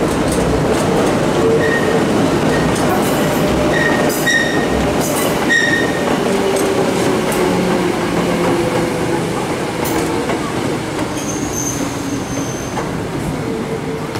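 Hakone Tozan Railway 2000-series two-car electric train running past, its wheels squealing in short high chirps on the tight curves. Through the middle a humming tone falls steadily in pitch, and a higher squeal rings out later on.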